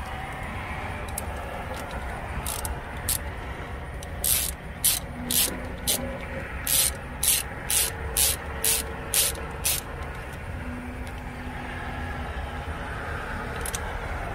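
Craftsman socket ratchet tightening a battery-cable terminal nut: about a dozen short bursts of pawl clicking on the back strokes, coming about two a second, starting a couple of seconds in and stopping about ten seconds in. A steady low rumble runs underneath.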